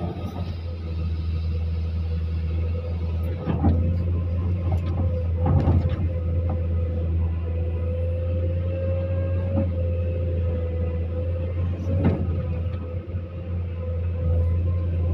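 Excavator's diesel engine running steadily under load, heard from inside the cab, with a steady whine over the low drone. Sharp knocks come about three and a half seconds in, again at five and a half seconds and near twelve seconds as the bucket works.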